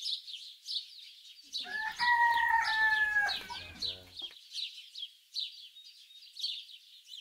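A rooster crows once, a call about two seconds long starting about two seconds in, over steady, rapid high chirping.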